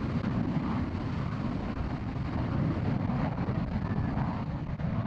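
F-16 fighter jet engine running at high power for takeoff, a steady deep rumble.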